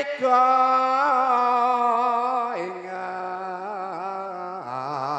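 A solo male voice singing an unaccompanied Javanese vocal line in long held notes with a wavering vibrato, stepping down in pitch about two and a half seconds in and again near the end.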